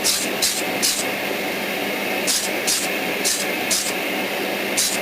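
About eight short, high-pitched scraping strokes in uneven clusters: a hand tool trimming a small plastic model part, the steering wheel, at the edge where it was cut from the runner. A steady hum runs underneath.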